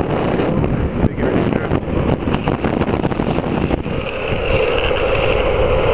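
Wind buffeting the camera microphone over the rumble of longboard wheels rolling fast on asphalt. About four seconds in a steadier, higher hiss joins.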